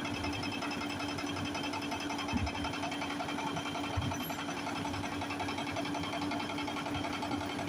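Jackhammer chipping stone, hammering at a fast, even rate that runs together into a steady chatter, with a steady hum underneath.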